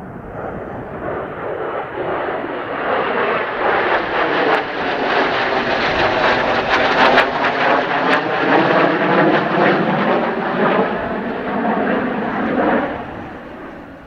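Jet noise from a pair of F/A-18C Hornets, each with twin General Electric F404 turbofans, passing overhead in formation as they bank into the overhead break to land. The sound swells over several seconds with a wavering, phasing tone, peaks in the middle, then drops away quickly near the end.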